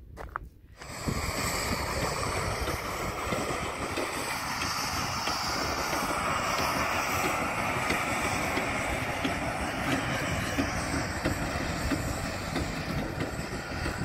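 Snowdon Mountain Railway rack steam locomotive and its carriage running along the track, a steady, dense rumble that starts about a second in.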